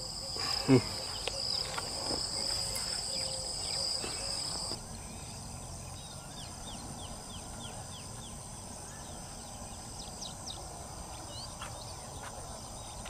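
Insects droning in steady high tones, the drone changing abruptly about five seconds in, with many short bird chirps in the second half. A brief louder sound dropping in pitch comes about a second in.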